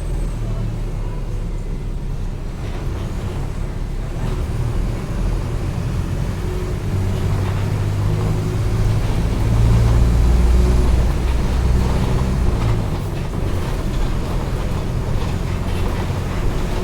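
Mercedes-Benz OF-1722M bus's diesel engine running with the bus under way, a steady low drone that grows louder about eight to eleven seconds in and then eases a little.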